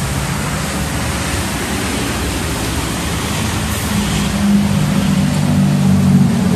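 Steady loud rush of car-wash machinery noise, with a low humming drone that grows louder about four seconds in.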